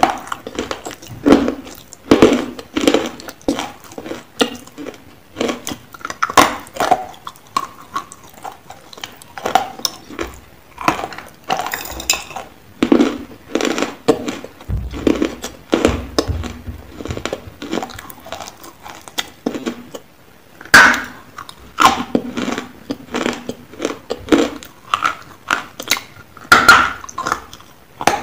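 Close-up crunching and chewing of dry, chalky Nakumatt clay lumps, bitten off in irregular crunches every second or so, with clinks of the stainless steel bowl they are taken from.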